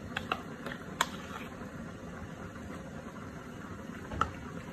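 Metal spoon clinking a few times against a ceramic bowl while stirring chicken pieces in a thick marinade, the loudest clink about a second in and another near the end, over a steady low hum.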